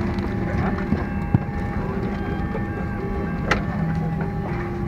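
Steady hum of a parked airliner's cabin, with passengers' voices in the background. Two sharp clicks, about a second in and again past three seconds, fit overhead bins being handled.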